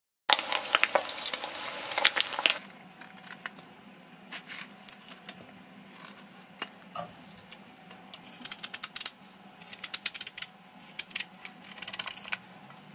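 Saltfish deep-frying in hot oil in a cast-iron skillet, sizzling and crackling loudly for about the first two and a half seconds. Then a knife cutting eggplant into strips and peeling eddoes, heard as scattered short clicks and scrapes.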